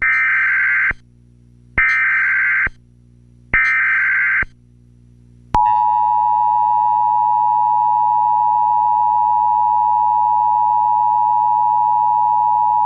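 Emergency Alert System–style alert tones: three short bursts of buzzing data tones about a second apart, then a single steady attention tone that starts about five and a half seconds in and holds.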